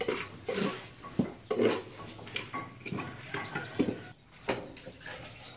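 Metal spoon clinking and scraping against an aluminium cooking pot in irregular knocks as beef is stirred in it.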